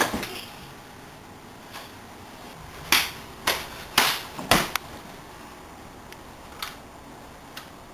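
Thumps and scuffling of a staged fistfight, with a cluster of four sharp hits about half a second apart near the middle, as bodies and blows land.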